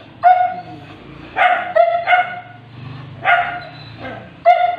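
A small dog yapping: about six short, high-pitched barks, roughly one a second.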